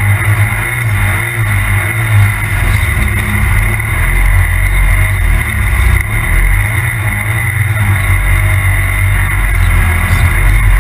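Polaris RZR Turbo side-by-side's turbocharged twin-cylinder engine running steadily under load at speed, a loud low rumble with a constant drive noise over it.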